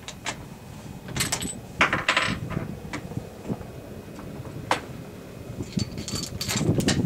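A string of sharp metallic clicks and clinks at irregular intervals, from the rifle's bolt being worked after the shot, with a cluster of clicks near the end.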